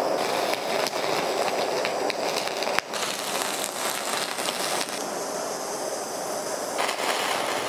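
Handheld kitchen blowtorch burning with a steady rushing hiss as its flame sears a crust onto a sous vide steak.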